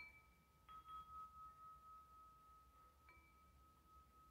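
Homemade wind chime of 1-inch aluminum tubes struck by a cue-ball clapper, ringing faintly. Three light strikes, the first two less than a second apart and the third about three seconds in, over a steady lingering ring.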